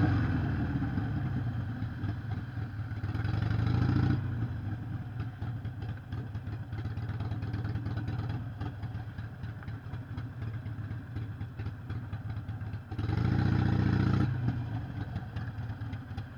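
Harley-Davidson Sportster 883 SuperLow's air-cooled V-twin engine running with a lumpy, pulsing idle, revved up twice: it swells to about four seconds in and drops back suddenly, then jumps up again near the end and falls away.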